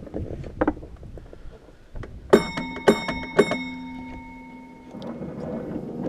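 A bell struck three times about half a second apart, each strike ringing on with clear tones that fade over about two seconds. Before it come light clicks and clacks, and near the end a steady rolling rumble rises as the small battery-electric tramway car gets moving.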